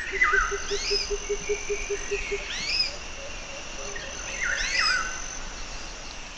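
Birds calling: the same short swooping phrase repeats three times, about every two seconds, over a steady high insect-like trill. A low, fast pulsing call runs under it for the first two seconds or so.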